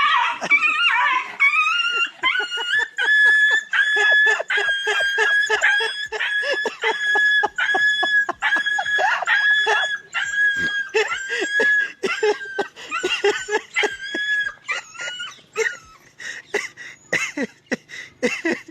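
An animal giving short, high-pitched cries over and over, about one every half-second, with sharp clicks between them. The cries thin out to scattered short yelps near the end.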